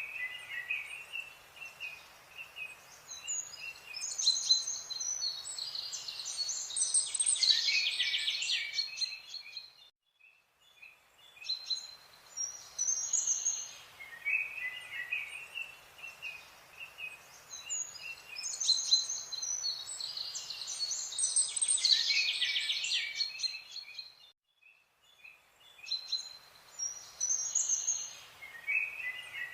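Several birds chirping and trilling in high, dense phrases over a faint background hiss, in a bird-song ambience that repeats itself about every 14 seconds, with a short drop to near silence at each repeat.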